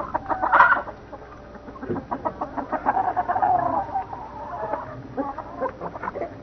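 Several hens clucking in short, separate calls. There is a louder call about half a second in and a longer drawn-out call around three seconds in.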